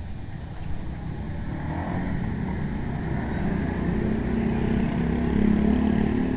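A motor vehicle's engine approaching, growing louder from about two seconds in to a peak near the end.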